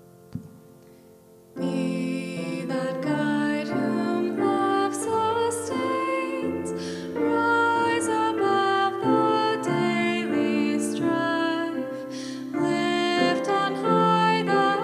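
Grand piano playing a slow, gentle piece, with a woman's singing voice joining about a second and a half in.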